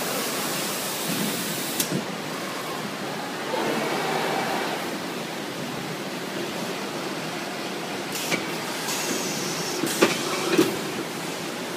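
Low gantry palletizer for cartons running: a steady mechanical whir as the gantry and its suction-cup gripper head move, with a sharp click about two seconds in and several knocks near the end.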